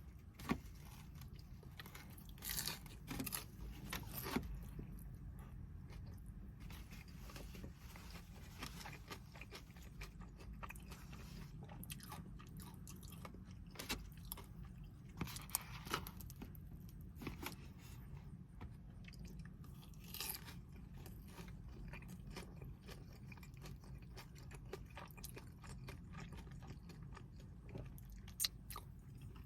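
A person chewing and biting food close to the microphone, with scattered crisp crunches over a low steady hum.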